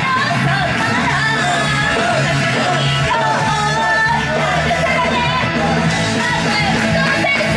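Female vocalist singing a rock song live into a handheld microphone through the club's PA, over loud, steady rock accompaniment.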